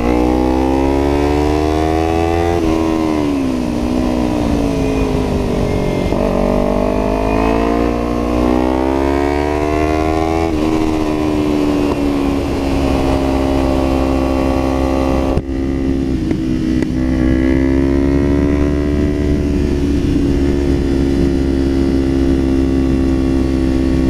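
Kawasaki Ninja 300 parallel-twin with a Yoshimura full exhaust, pulling up through the revs, with its pitch falling back at an upshift about three seconds in and again about ten seconds in, then running at a steady cruise. Wind rumbles steadily on the helmet microphone underneath.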